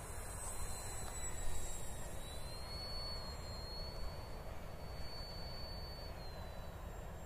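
Electric motor and propeller whine of a Durafly Spitfire Mk24 RC foam model flying past: a thin high whine that steps up in pitch a couple of seconds in, holds, then drops away near the end as the plane goes by. Wind rumble on the microphone underneath.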